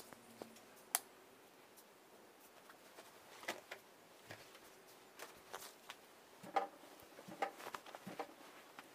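Scattered light clicks and taps from a phone being handled and moved about, with a sharp click about a second in and a cluster of taps near the end.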